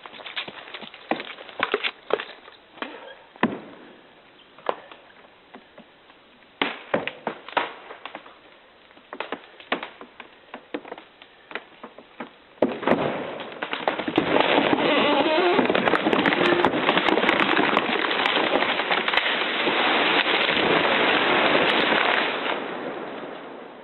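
A big tree going over after felling cuts: the holding wood cracks and snaps in sharp pops for about twelve seconds, then a loud, long crash of the trunk and branches coming down, lasting about ten seconds before it dies away.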